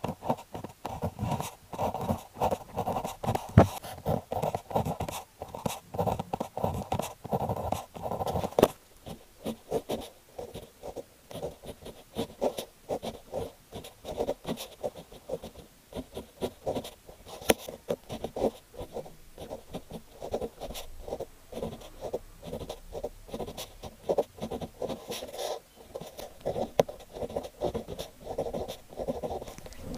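Needle-tip fineliner pen writing on paper: a quick, continuous run of short pen strokes, heavier for the first eight or nine seconds and then lighter.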